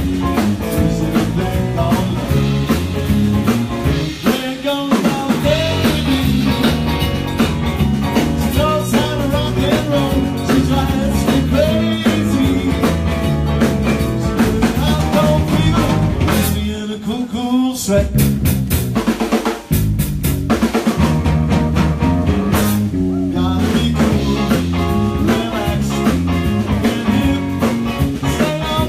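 Live band playing: electric guitars and a drum kit, loud and continuous, with a short drop in the music about seventeen seconds in.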